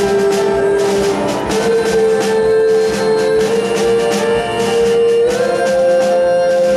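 Live band music from acoustic guitar, piano and drum kit, with long held notes from female voices that step to a new pitch a few times.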